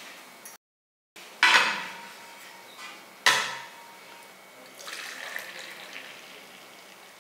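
Brass filter-coffee tumbler and dabarah clinking against each other, two ringing metallic clinks, one about a second and a half in and one about halfway; then coffee poured into the tumbler, a softer, longer pouring sound near the end.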